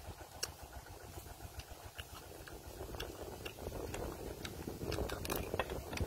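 Small cooked crabs being broken apart by hand and eaten: scattered sharp clicks and snaps of shell cracking, with chewing. A low wind rumble runs underneath on the microphone.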